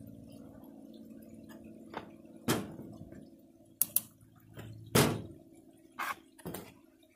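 Handling noise on a portable generator's plastic housing: several short knocks and clicks as the side panel is gripped and moved, the loudest about five seconds in. A faint low hum fades out over the first couple of seconds.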